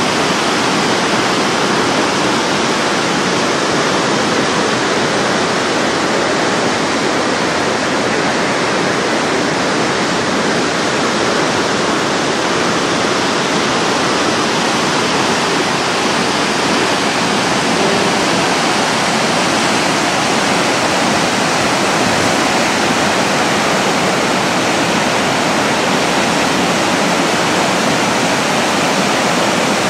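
A large waterfall, Sanjō Falls on the Tadami River, rushing loudly and steadily, with an even roar of falling water.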